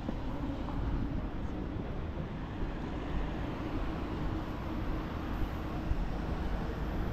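Steady city street background noise, mostly a low rumble such as traffic, without any distinct single event.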